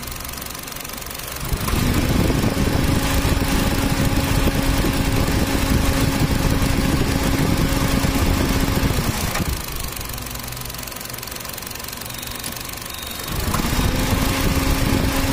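Honda Brio petrol engine running with its AC compressor engaged. About a second and a half in, the sound jumps to a loud, steady running noise with a tone that glides up. It holds for about eight seconds, drops back to a quieter run, and rises again near the end. The loud stretches carry the noise of a faulty AC compressor, which is heard only when the engine is revved to about 2000–3000 RPM and is the reason the compressor is being replaced.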